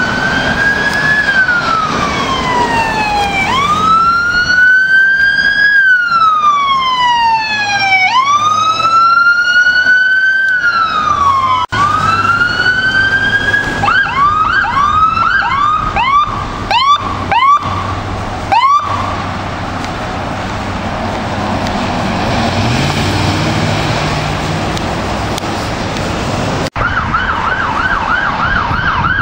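Electronic sirens on fire department command SUVs responding. A slow wail rises and falls every four seconds or so, then a run of short quick whoops. After a quieter stretch of traffic and engine noise, a fast yelp starts near the end.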